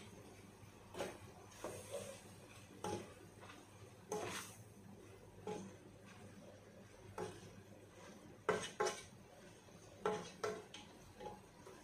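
Wooden spatula stirring shrimp and spices in a non-stick cooking pot, knocking and scraping against the pot in irregular strokes about once a second, some in quick pairs.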